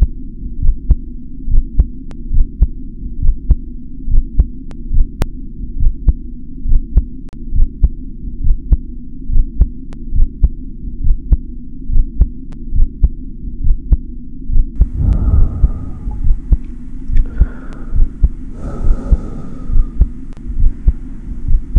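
A low, steady hum with a regular, heartbeat-like throbbing pulse, each beat carrying a faint click. From about fifteen seconds in, a rustling hiss with some higher scratchy sounds joins it.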